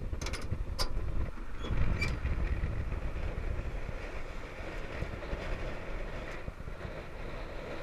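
A few sharp metallic clicks and knocks in the first two seconds as the truck's hood is unlatched and raised, over a steady low rumble.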